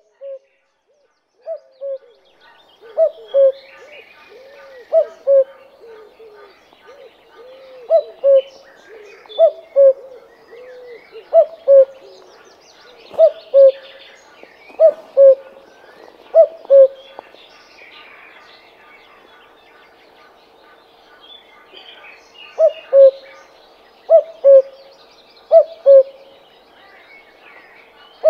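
Common cuckoo calling its two-note "cuck-oo", the second note lower. About a dozen calls come roughly every second and a half, with a pause in the middle, over faint chirping of other birds.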